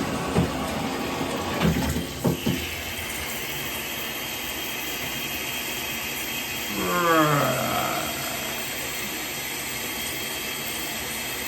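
Rain shower head spraying water steadily into the shower. There are a few knocks in the first couple of seconds, and about seven seconds in there is one falling, groan-like vocal sound.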